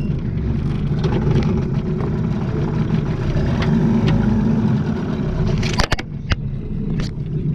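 Mercury outboard motor on a small boat running steadily, with a few sharp knocks about six seconds in.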